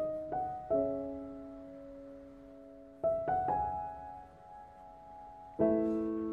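Slow solo piano music: notes and chords struck and left to ring out. There is a cluster of three at the start, another about three seconds in, and a fuller chord near the end.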